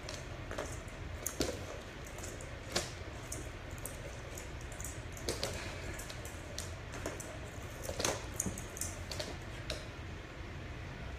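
Irregular clicks and taps of a large puppy's claws and a self-moving toy ball on a hardwood floor as the puppy scrambles and pounces at the toy, a few sharper knocks standing out, over a steady low hum.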